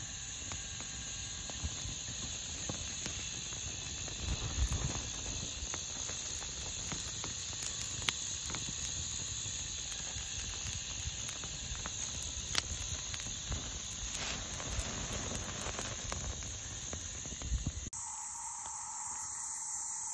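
Wood campfire crackling, with scattered small clicks and a few louder pops, under a steady high insect drone. About 18 seconds in it cuts to steady insect chirring on its own.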